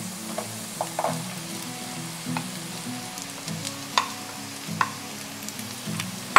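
Garlic and sliced mushrooms sizzling in hot oil in a nonstick frying pan, a steady hiss broken by a few sharp taps and clicks as the mushrooms are tipped in from a bowl, the loudest about four seconds in.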